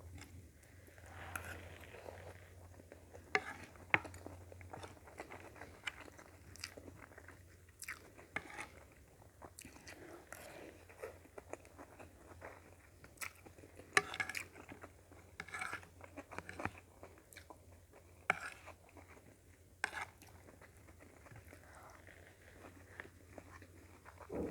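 A person eating close to the microphone: chewing and biting with occasional crunches, and irregular short clicks of varying loudness. The food is sautéed cabbage, potato and carrot with sardines, and rice.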